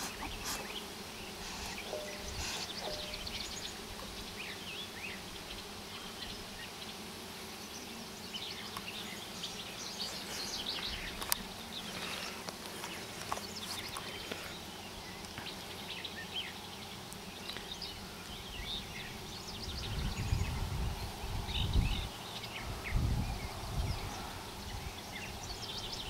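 Honeybees buzzing steadily around an open hive, with scattered light clicks and rustles; a few low rumbles come in near the end.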